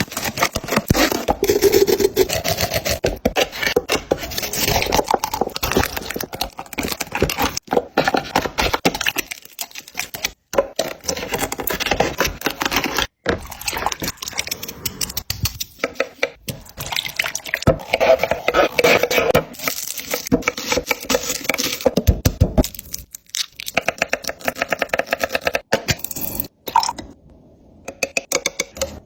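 Cooking sounds: rapid clattering and scraping of utensils on cookware, with a few brief pauses.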